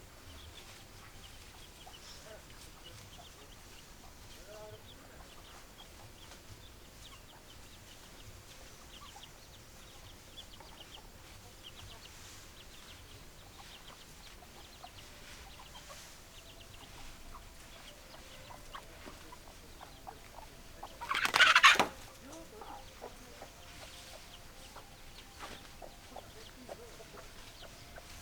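Chickens clucking faintly with short scattered calls, and one loud call about a second long roughly three quarters of the way through.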